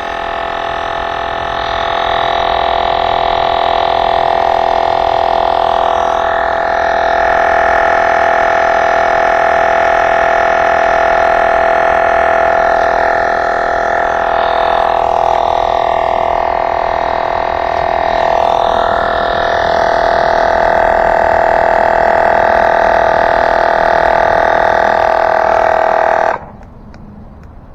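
Portable electric tire inflator running steadily while pumping up an ebike tire, then switching off suddenly near the end.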